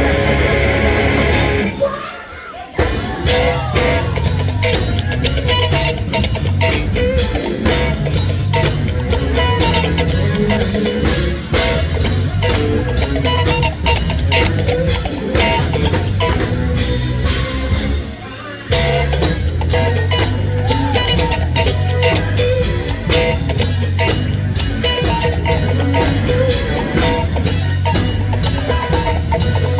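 Live funk band playing, with electric guitar, bass and drum kit over a steady beat. The band cuts out briefly twice, about two seconds in and again just past the halfway point, then comes straight back in.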